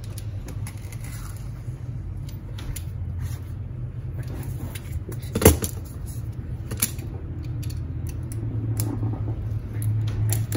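Hands scratching and picking at the plastic shrink-wrap seal of a smartphone box to open it, with small crinkles and clicks and one sharp click about halfway through. A steady low hum runs underneath.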